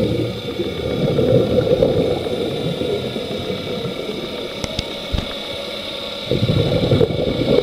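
Scuba diver's exhaled bubbles gurgling underwater, over a few steady high tones. The bubbling is strong for the first few seconds, eases off for a short spell, then returns near the end, like one breath out, a breath in and the next breath out.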